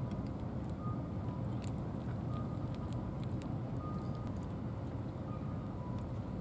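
Steady low rumble of vehicle traffic, with faint scattered clicks of a cat crunching dry kibble.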